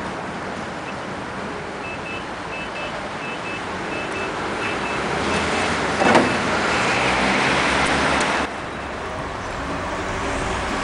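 City street traffic noise, steady and moderately loud, with short high beeps repeating about twice a second for a few seconds and a brief knock about six seconds in.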